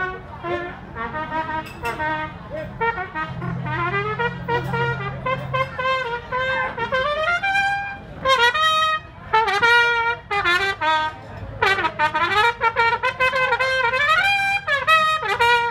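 Solo trumpet played live, a melody of many short notes with several upward slides between them.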